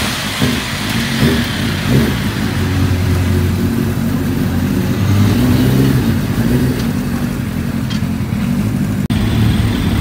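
Harris Kawasaki race bike's four-cylinder engine with open exhaust, just fired up on a roller starter. It is blipped three quick times and then runs at a steady idle. A short break about nine seconds in, then engine running continues.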